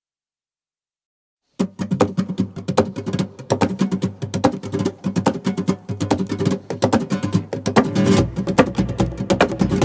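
Dead silence for about a second and a half, then background music starts suddenly: strummed acoustic guitar with sharp percussive hits, a deeper low part joining about eight seconds in.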